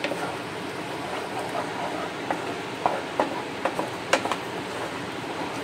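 Wooden spatula stirring a thick tomato-onion masala in a nonstick pan, scraping through the paste, with a few light knocks against the pan in the second half. A steady hiss runs underneath.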